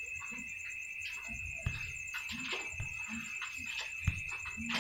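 A steady high-pitched whine under faint background noise, with a few scattered faint short sounds.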